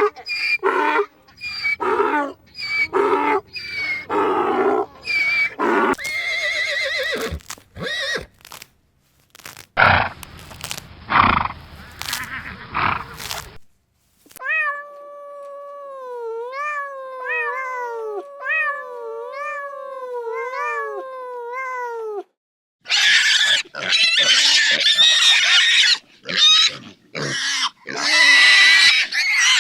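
A string of different farm animal calls, cut one after another. First comes a rapid run of short repeated calls, then a series of calls that each slide down in pitch, then loud harsh calls near the end.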